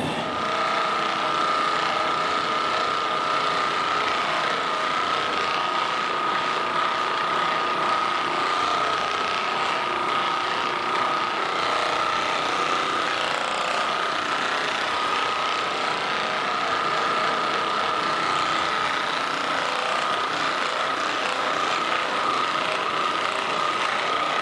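Handheld percussive massage gun running steadily, its motor buzzing with a constant high hum.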